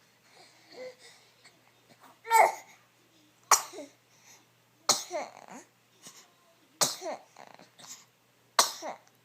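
Baby sneezing four times in a row, one sharp sneeze about every one and a half to two seconds, each followed by a short babble or whimper. A loud voiced burst comes just before the first sneeze.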